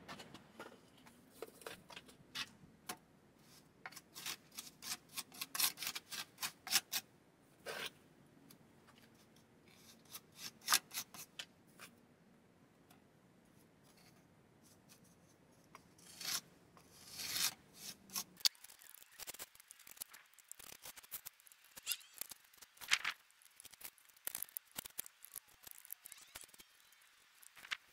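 Irregular scraping and scuffing as wet concrete is scooped and pressed into a wooden box form lined with metal mesh, a tool and fingers scraping through the mix and against the wood.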